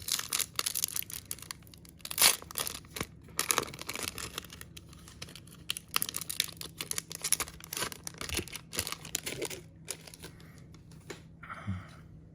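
Trading-card pack wrapper being torn open and crinkled, an irregular crackling and rustling that thins out after about ten seconds.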